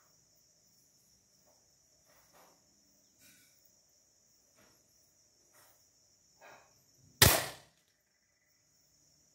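Norica Shooter 5.5 mm spring-piston air rifle fired once about seven seconds in: a single sharp crack with a short fading tail. Crickets chirp steadily throughout.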